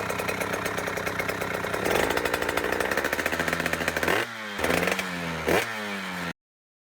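KTM 85 SX single-cylinder two-stroke dirt bike engine running hard, its pitch rising sharply twice near the end as it is revved, before the sound cuts off suddenly.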